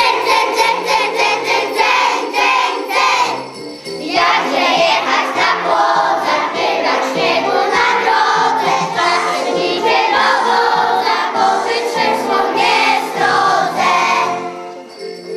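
Children's choir singing a Christmas song over instrumental accompaniment, with jingle bells shaken in a steady beat; the singing thins briefly about four seconds in, then carries on.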